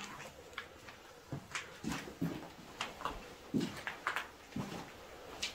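Irregular footsteps and scuffs, a soft thud about once a second, with sharp scrapes between them.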